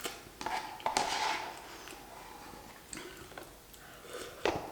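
Faint close-miked eating and handling noises: scattered soft clicks and a short crackly rustle about a second in, then quieter clicks toward the end.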